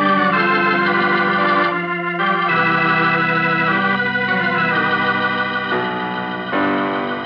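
Organ music: a radio-drama musical bridge of held chords that shift several times, a transition cue between the commercial and the return to the story.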